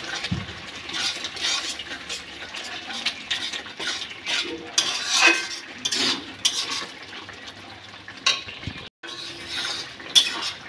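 A metal spatula scraping and clinking against a large metal kadai as a thick, simmering bottle gourd and prawn curry is stirred, in irregular strokes with a brief break near the end.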